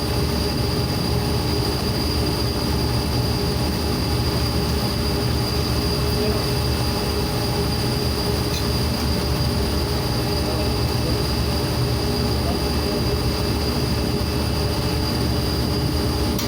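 Loud, steady industrial machinery drone with several constant tones, including a high-pitched whine, unchanging throughout.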